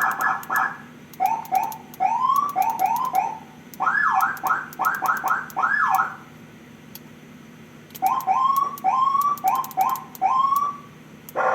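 Aftermarket electronic car siren cycling through its tones: a fast warble, a run of short rising chirps, quick up-and-down whoops, a pause about six seconds in, more rising chirps, then a rapid pulsing tone starting near the end.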